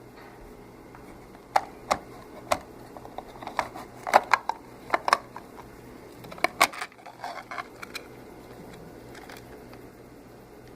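Pushbuttons on a hand-built Arduino alarm clock clicking as they are pressed: a string of irregular sharp clicks, some in quick clusters, from about one and a half to eight seconds in.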